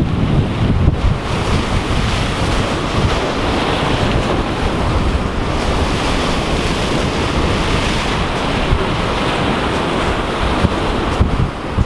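Big ocean waves breaking and surging against the rocks of a jetty, with wind buffeting the microphone, a loud steady rush with a heavy low rumble.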